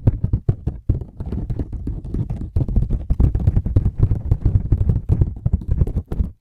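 Fingertips tapping and scratching rapidly, a dense run of quick taps and scrapes with short pauses about a second in and near the end.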